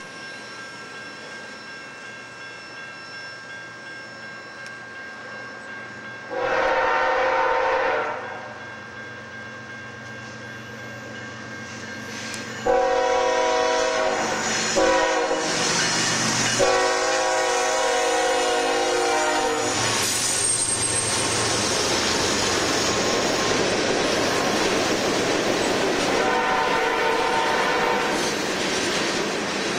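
BNSF diesel freight locomotives' multi-chime air horns sounding four separate blasts: a short one about six seconds in, two long ones from around thirteen to twenty seconds, and another near the end. From about thirteen seconds on, a freight train rolls past with a loud steady rumble and wheels clicking over rail joints.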